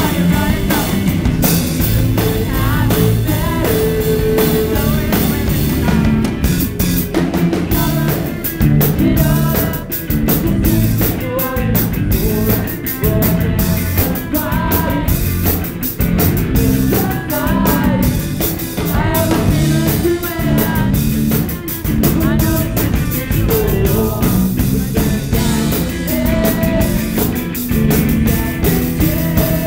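Live rock band playing a song: a man singing lead over electric guitar and a drum kit, loud and continuous.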